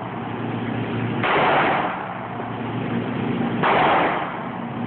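Two pistol shots about two and a half seconds apart. Each is a sharp crack that dies away in a short echo off the walls of an indoor shooting range.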